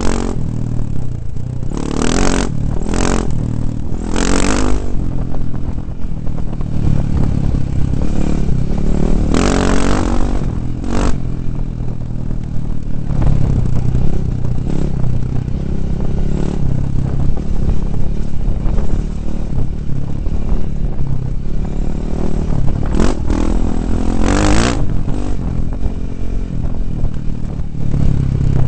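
2009 KTM 450 dirt bike's single-cylinder four-stroke engine running under load off-road, revving up and down as the throttle is worked. The engine sound is mixed with heavy rumble and clatter, with several short loud rushes of noise near the start, around the middle and near the end.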